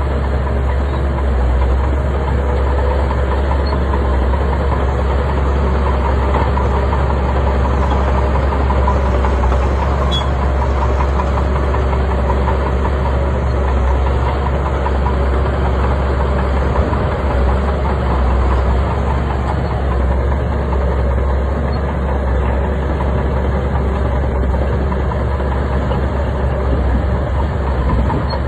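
Bulldozer's heavy diesel engine running steadily, loud with a deep low drone.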